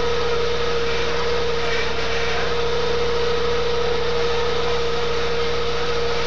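Engine running steadily at a constant speed: an even whine over a hiss, with no change in pitch.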